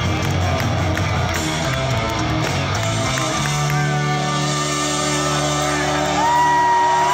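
Live hard rock band playing loud through a hall PA, heard from among the audience: drums and electric guitars, then about halfway in the band holds a sustained chord under a long held high note that steps up near the end.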